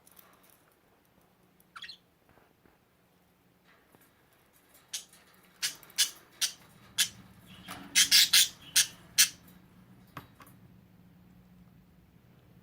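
Budgerigars making a series of sharp popping clicks, about ten in a few seconds and loudest as a quick cluster about eight seconds in: the angry popping budgies make as a threat. A brief rising chirp comes early on.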